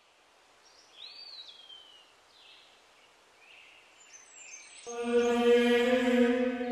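A few faint, high chirping glides, then about five seconds in a voice begins a long chanted note held at one pitch.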